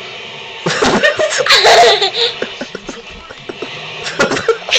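A young girl laughing, in loud, high-pitched bursts that start just under a second in.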